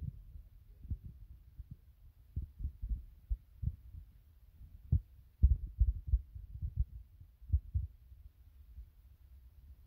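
A string of irregular low thumps and rumble on the camera's microphone, densest between about five and eight seconds in.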